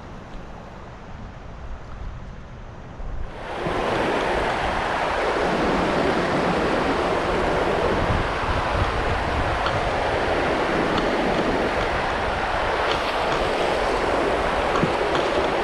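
Rushing water of river shoals running loud and steady, coming in suddenly about three seconds in after a quieter low rumble.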